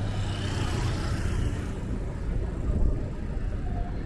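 Steady low rumble of city street traffic with a constant low hum underneath.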